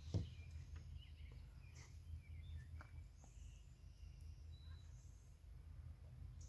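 Quiet ambience with faint bird chirps, broken just after the start by a single knock as a plastic jug is set down on the floor of a Tesla Model 3's front trunk.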